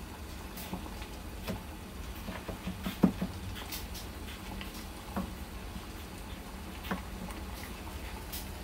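Knife chopping a garlic clove on a cutting board: irregular taps and knocks, a few close together with the loudest about three seconds in, the rest spaced a second or two apart.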